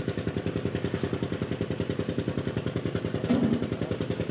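An engine running steadily at idle with an even, rapid pulsing beat, about a dozen beats a second.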